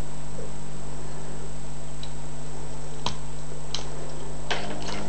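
A few faint, sharp metallic clicks, spaced out and coming closer together near the end, from a cut-down key lifting the levers inside an old, rusty four-lever padlock while tension is held on the bolt. A steady low hum runs underneath.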